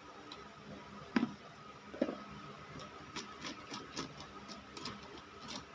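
Light knocks and taps of a plastic solar charge controller and a hand tool handled on a plywood board: two sharper knocks about a second and two seconds in, then a run of lighter, irregular ticks.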